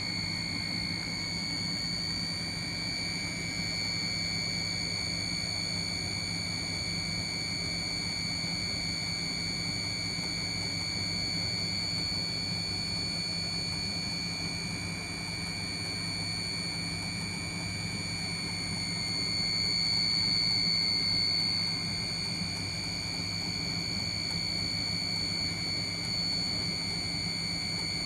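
Steady machine hum with a constant high-pitched whine, swelling slightly about twenty seconds in.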